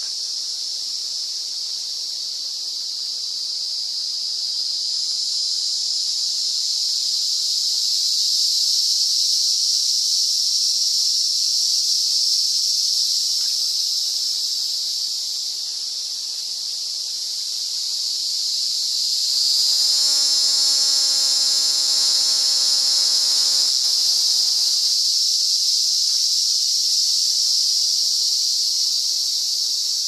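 Emerald cicada (Zammara tympanum) singing: a continuous high-pitched buzz that swells and eases twice. About two-thirds of the way through, a lower tone with overtones sounds for about four seconds, dipping slightly in pitch as it stops.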